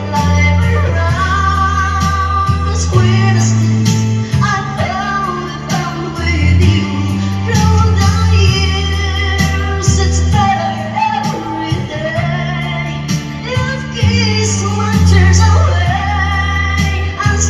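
A woman singing a slow pop ballad into a microphone over a prerecorded backing track, with sustained bass notes and a steady light beat beneath her voice.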